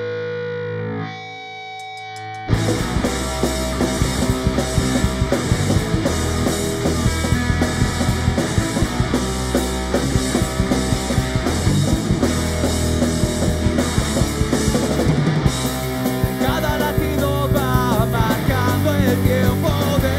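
Live rock band playing: a lone electric guitar through effects, then drums, bass and distorted guitars come in together about two and a half seconds in. Near the end, gliding notes rise over the top of the band.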